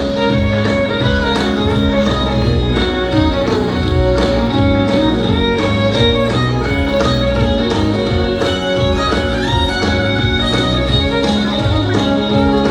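Country music instrumental break with fiddle and guitar over a steady beat, without singing.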